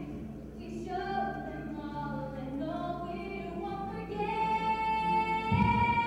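A young woman singing a song into a microphone, accompanied by acoustic guitars. About four seconds in she rises to a long, held high note, and a low thump comes near the end.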